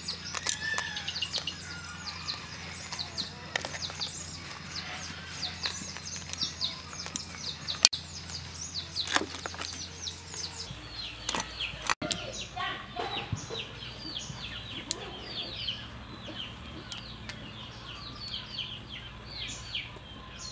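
Small birds chirping over and over in quick, short falling notes, with a few sharp clicks in between.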